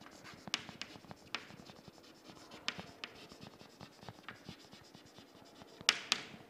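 Chalk writing on a chalkboard: faint scratching strokes with many light taps as letters are formed, and two sharper taps shortly before the end.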